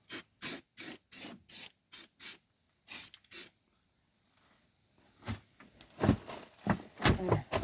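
Aerosol can of rubberized undercoating spraying in short quick squirts, about nine in the first three and a half seconds, as a missed spot is touched up. A few knocks and rustles follow near the end.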